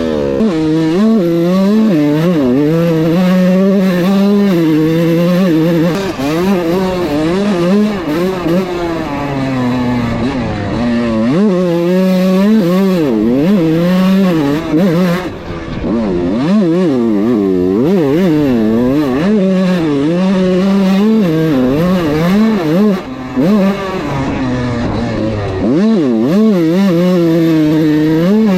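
Kawasaki KX125 single-cylinder two-stroke dirt bike engine being ridden hard. The pitch rises and falls over and over as the throttle is worked through the gears, with a few brief drops where the throttle is shut off. The freshly rebuilt engine has a crunching noise that the rider thinks could be the main bearing, the power valve or the top end.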